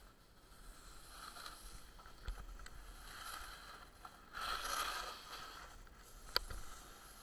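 Snowboard sliding over snow, a scraping hiss that swells and fades and is loudest about halfway through, with two sharp clicks, one near the end.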